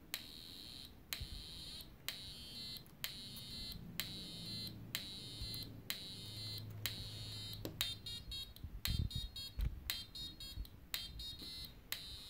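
Homemade eight-step sequencer built from CD40106, CD4040 and CD4051 chips playing a repeating sequence of buzzy, high-pitched square-wave tones, each step starting with a click, its notes set by the potentiometer knobs being turned. The steps come about once a second, then roughly twice as fast from about eight seconds in, with a few low knocks near the same time.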